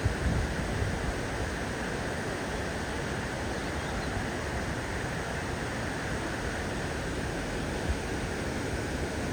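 Waterfall rushing with a steady, even roar of falling water, and a brief low thump near the start and again about eight seconds in.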